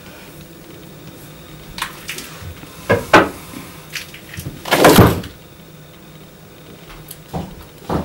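A wooden chair pulled out from a table and sat in: a few knocks of wood, and about five seconds in the loudest sound, a half-second scrape of the chair across the floor.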